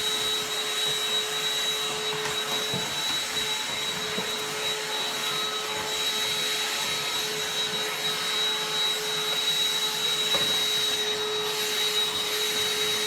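An electric motor appliance running steadily: a constant rush of air with a steady high whine and a lower hum.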